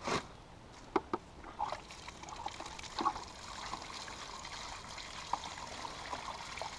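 Water splashing and dripping in a plastic bucket as live bluegills are grabbed out of it by hand. There are a few short wet slaps and knocks in the first three seconds, over a steady trickle.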